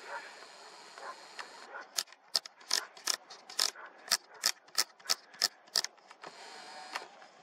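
About a dozen sharp mechanical clicks, roughly three a second, from a camera's control dial or buttons being clicked through while its settings are changed.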